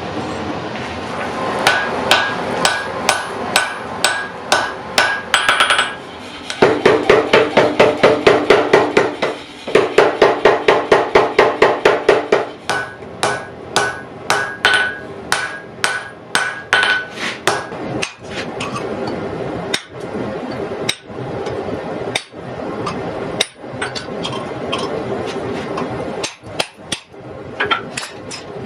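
Hammer blows on steel at an anvil while forging a blade, some strikes ringing. There is a brisk series of blows, then a faster, louder run in the middle, then slower, more widely spaced blows near the end.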